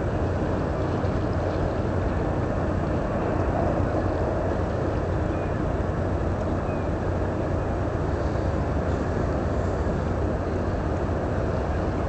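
Steady low engine drone of a passing cargo ship, under a constant rushing noise.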